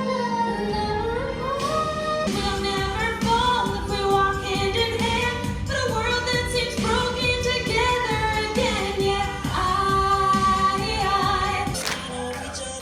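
Music: a song with a singing voice over instrumental backing and a steady beat.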